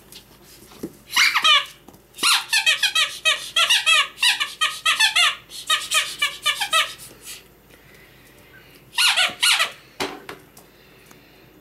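Rubber squeaker in a dog toy squeezed over and over, giving quick runs of short high squeaks, several a second, for about six seconds; a shorter run of squeaks comes near the end.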